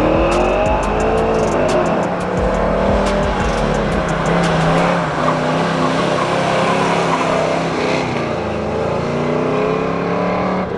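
Lowered Chevrolet OBS pickup's engine revving hard on an autocross course, the revs rising and falling repeatedly as the truck accelerates, brakes and turns, with some tyre squeal as it slides through the cones.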